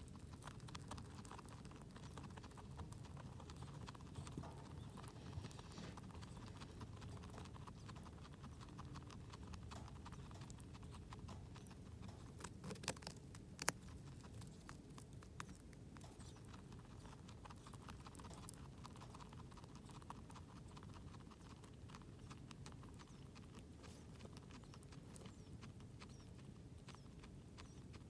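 Guinea pig chewing food, faint rapid clicking crunches, with a couple of louder clicks about halfway through.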